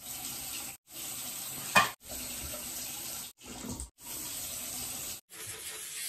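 Tap water running into a bathroom sink, heard in several short stretches that cut off and start again abruptly. A sharp clack sounds a little under two seconds in, louder than the water.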